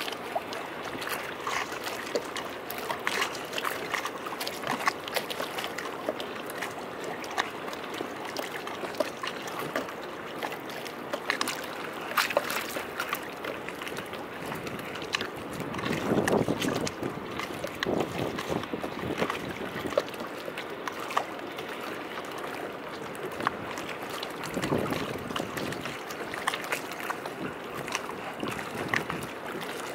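Small sea waves lapping and sloshing against concrete quay steps, with many little splashes and drips. Two fuller surges come through, one a little past halfway and one later on.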